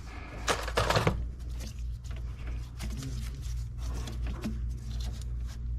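Scattered clicks and knocks of hand tools being handled on an engine, louder about half a second to a second in, over a steady low hum.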